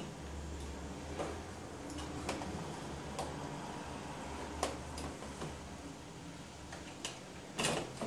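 Scattered light clicks and knocks of a hard drive and the computer's internal parts being handled as the drive is lifted out of a Sony Vaio all-in-one, over a faint low hum. The loudest knocks come near the end.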